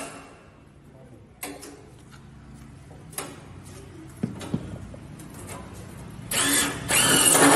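Cordless drill driving screws into a steel door frame: a few light knocks and handling sounds at first, then near the end the drill runs loudly, its motor pitch rising and then falling.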